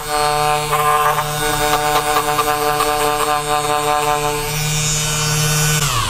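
Background music of sustained droning tones that shift notes partway through; near the end the tones slide down in pitch together and cut off.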